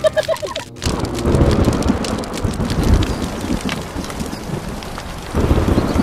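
Thunderstorm sound effect: steady rain with low rolling rumbles of thunder, starting about a second in, the thunder swelling again near the end.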